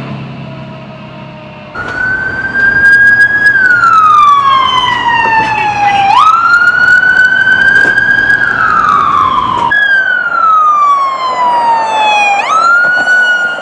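Electronic emergency-vehicle sirens on wail: the pitch slowly rises and falls, with a quick sweep back up after each low point. The first two seconds hold a quieter siren fading as a fire engine drives away. A loud siren from a lifeguard Jeep follows from about two seconds in, and a police SUV's siren comes in after a sudden cut about ten seconds in.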